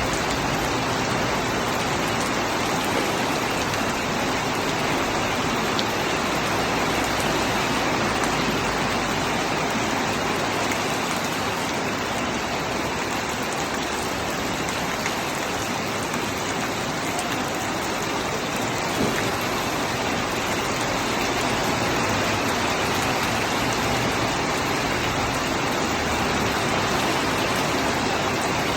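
Steady rain falling and pattering on surfaces, an even hiss with no breaks.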